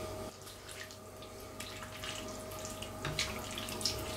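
Chicken and pineapple pieces in broth and pineapple juice bubbling quietly in a frying pan, with scattered small pops and drips. A spoon stirs through the pan near the end.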